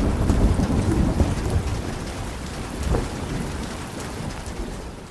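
Thunderstorm sound effect: thunder rumbling over steady rain, fading out near the end.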